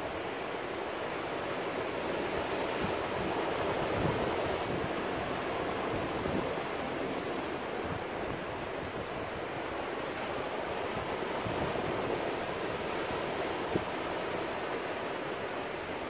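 Ocean surf breaking and washing among rocks: a steady rush of water that swells a little about four seconds in and again around twelve seconds.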